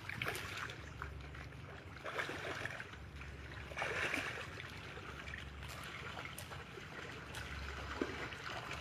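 Shallow pond water splashing and trickling as a man wades and scoops a hand net through it, with the biggest splash about four seconds in.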